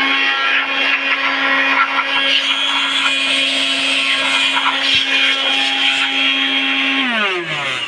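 Electric motor running at steady speed with a high, even hum. About seven seconds in it is switched off and spins down, its pitch falling away.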